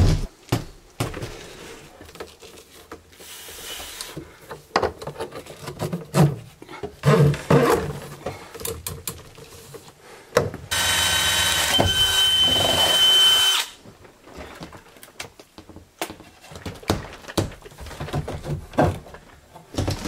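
Cordless drill running steadily for about three seconds midway, with a fixed whine, then stopping abruptly. Scattered knocks and handling thumps before and after.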